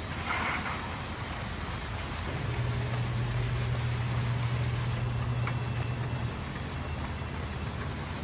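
Sawmill band saw running and cutting through a log on the feed carriage: a steady machine drone, with a stronger low hum from about two seconds in until about six seconds in.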